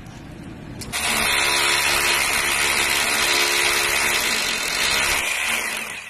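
Electric power drill running steadily as it bores into a tiled masonry exterior wall. It starts abruptly about a second in, runs for about five seconds, then winds down near the end.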